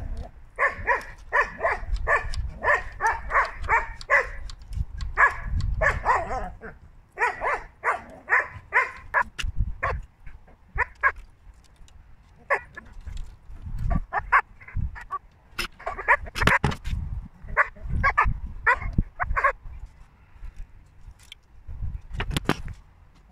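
A dog barking in quick runs of short barks, about four or five a second, that stop and start again several times.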